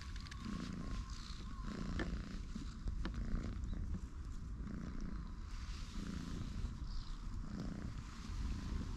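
Orange tabby cat purring close up while its head is stroked. The purr swells and fades with each breath, about once a second.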